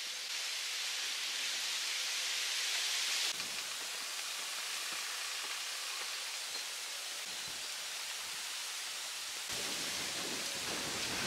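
Steady hiss of water, changing abruptly in tone about three seconds in and again near the end.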